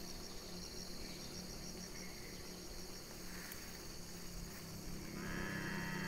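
Steady insect chorus, a high pulsing buzz, over a low hum. About five seconds in, a louder humming tone with several pitches comes in.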